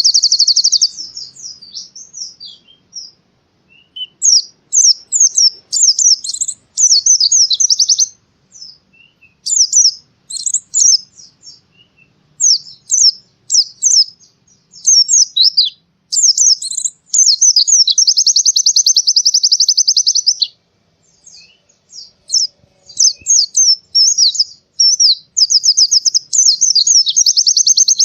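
White-eye (pleci) singing: quick, high-pitched chirping phrases broken by short pauses, with a long, fast, even trill near the middle and another toward the end.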